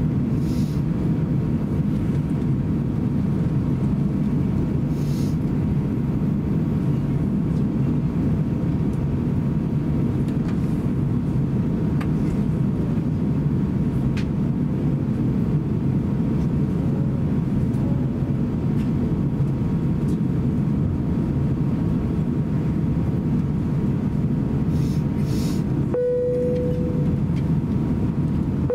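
Airbus A350-900 cabin noise while taxiing: the steady low rumble of its Rolls-Royce Trent XWB engines at taxi thrust with the cabin air, heard from a window seat beside the engine. Near the end a short clear tone sounds.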